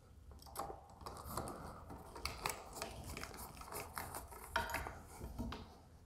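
Small set screw being driven into a steel scope-mount collar with a small hand driver: faint, scattered clicks and scrapes of the tool tip and screw on metal.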